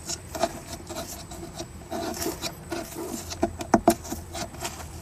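A tool scraping and rubbing against the refrigerator's thin, brittle plastic liner in short irregular strokes, with a few sharp clicks about three and a half seconds in.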